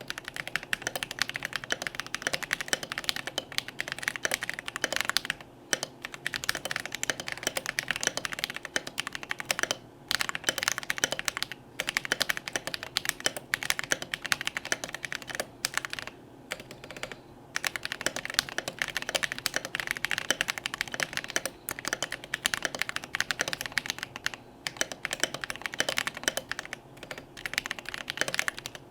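Fast, continuous typing on a Melody96 mechanical keyboard with tactile Holy Panda switches, a brass plate and thick PBT double-shot OSA-profile keycaps. The keystrokes come as a dense run of clacks with brief pauses every few seconds.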